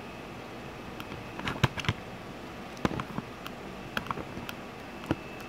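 Light, irregular clicks and taps of hands handling a plastic action-camera mount and a motocross helmet shell, over a steady hiss.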